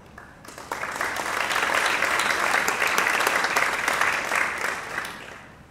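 Audience applauding: many hands clapping together, rising quickly about half a second in, holding steady, then dying away near the end.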